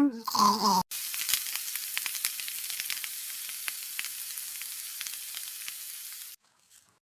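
Food sizzling in a hot frying pan, an even hiss with many small pops, for about five and a half seconds before it cuts off suddenly.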